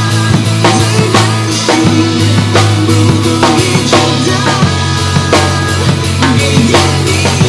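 Acoustic drum kit played live to a pop backing track: regular snare and bass drum beats with cymbals over sustained bass notes that change every few seconds.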